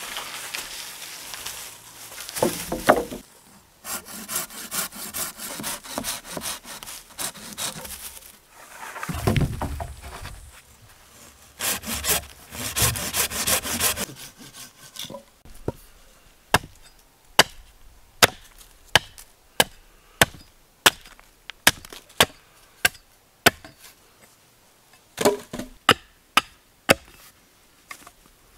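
Birch poles being worked with a hand saw: stretches of quick rasping saw strokes through the wood, then a regular series of sharp wooden knocks, about two a second, in the second half.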